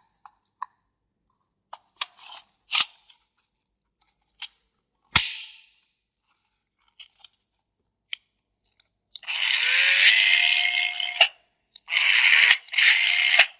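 Old Makita 7.2 V cordless drill, refitted with a lithium-ion battery pack, being handled with a few clicks and knocks, then run: the motor spins up with a rising whine and runs for about two seconds, followed by two shorter bursts near the end.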